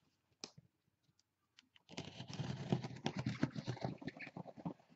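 A blade slitting heavy packing tape along a cardboard box's seam: a few scattered clicks, then, about two seconds in, a dense crackling run of small ticks and scratches lasting nearly three seconds.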